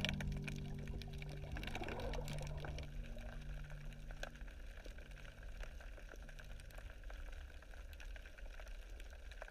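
Water sounds with scattered sharp clicks, under the tail of held music notes that fade out over the first few seconds.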